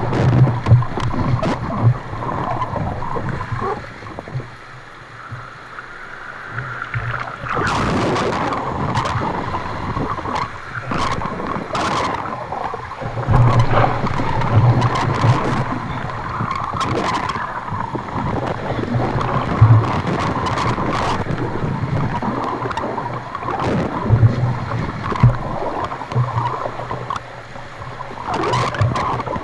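Whitewater rapids rushing and splashing close around an open canoe, with frequent sharp splashes and knocks as waves break over the bow and spray cover. It eases for a few seconds about four seconds in, then picks up again.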